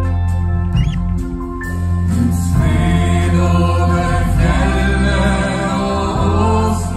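A live band playing a Christmas hymn over a steady bass line, with a male lead singer and backing singers coming in together about two seconds in.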